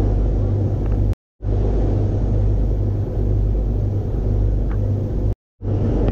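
Steady low drone of a ferry's diesel engines with the rush of wind and water across the deck. It cuts to silence for a moment twice, about a second in and again near the end.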